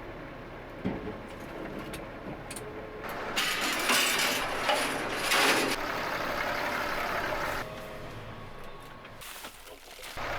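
Tractor engine running, with a stretch of loud hissing noise in the middle and a single click about a second in.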